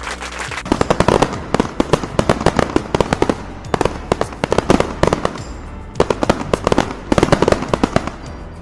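Fireworks sound effect: dense crackling pops in several bursts with short pauses, starting about a second in, over background music.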